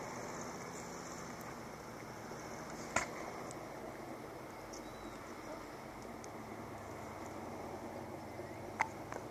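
Steady outdoor background noise with two sharp clicks, one about three seconds in and one near the end; no clear birdsong stands out.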